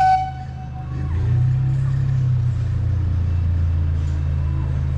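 Narrow-gauge park train's locomotive gives one short whistle blast at the very start, then its low, steady engine rumble grows louder about a second in as the train approaches.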